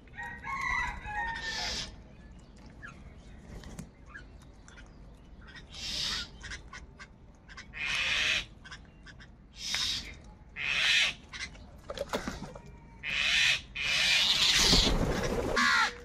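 A flock of house crows cawing: a string of harsh caws, roughly one every second or two, with the longest and loudest call near the end.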